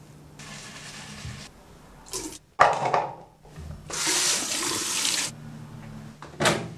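Water running from a tap in separate spurts, the longest and loudest lasting about a second and a half past the middle, with a sudden loud burst about two and a half seconds in. A steady low hum runs underneath.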